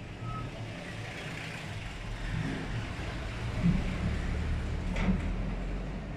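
Low steady background rumble that swells a little in the middle, with a short knock about five seconds in.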